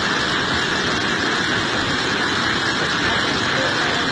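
Steady, loud rushing of a muddy flash-flood torrent.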